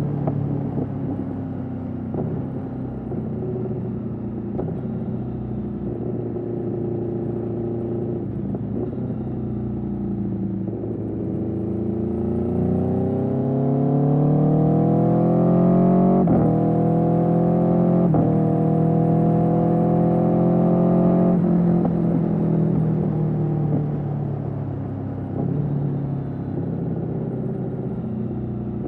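2021 Aprilia Tuono V4's V4 engine through an Austin Racing GP1R exhaust, running at part throttle at first. About a third of the way in it accelerates hard, rising in pitch and level, with two quick gear changes a couple of seconds apart. It then eases off and the pitch falls near the end.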